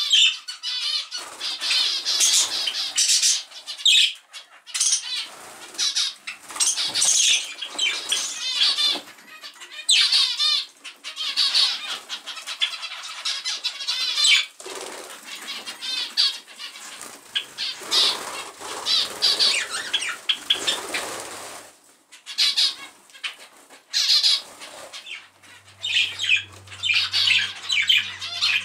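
A mixed aviary flock of budgerigars and finches chattering continuously: rapid warbling and chirping in bouts with short pauses, with occasional wing flutters. A steady low hum comes in near the end.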